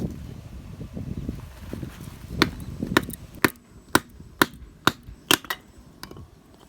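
A blade chopping into firewood: about eight sharp strikes at roughly two a second, each a clean wooden knock.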